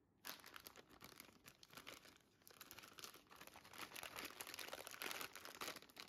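Faint crinkling and rustling of a plastic packaging bag being handled while plastic mounting brackets are pulled out of it, louder in the second half.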